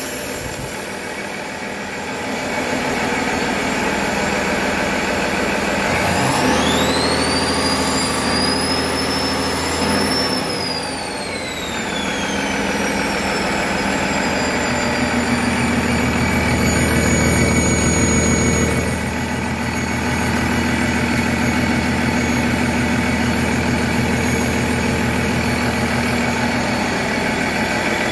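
Cummins B6.7 six-cylinder turbo diesel running on a test stand, idling and revved up. About six seconds in, a high whistle climbs as the engine speeds up, holds, and falls away a few seconds later as it settles back. The engine runs louder again for a few seconds a little past the middle.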